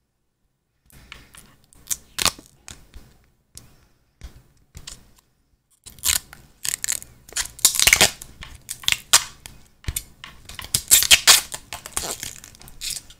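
Irregular rustling, crinkling and scraping of hands handling the Razer Zephyr Pro face mask close to the microphone, in short bursts with a few pauses. It is busiest in the second half.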